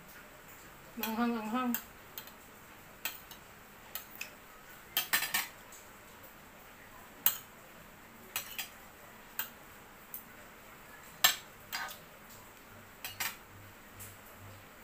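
Metal spoon and fork clinking against a ceramic plate while eating, in scattered sharp clinks, about a dozen of them, with the loudest two about 7 and 11 seconds in.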